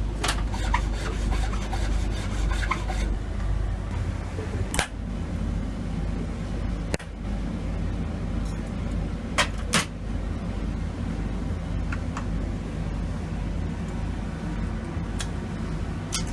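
Small hand tools clicking and scraping on metal at a jeweller's bench over a steady low machine hum, with a brief rasping scrape near the start and a few sharp clicks scattered through.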